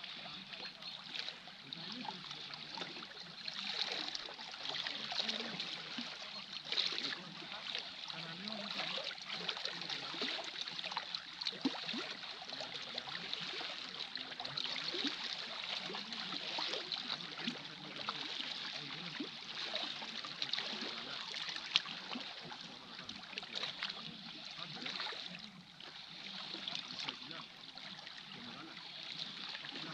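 Small sea waves lapping and trickling among the rocks at the water's edge, with many little splashes.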